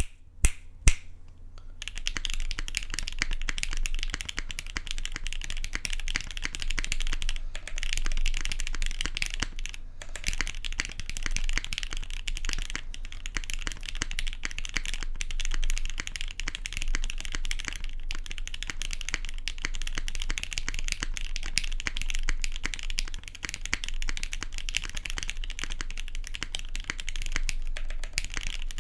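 Fast continuous typing on a custom 60% mechanical keyboard: a black-anodized aluminium GS60 case with a UHMWPE plate, lubed Gateron Black Ink linear switches, clip-in stabilizers and GMK keycaps. A few separate key strikes come in the first second, then steady rapid typing from about two seconds in, over a low steady hum.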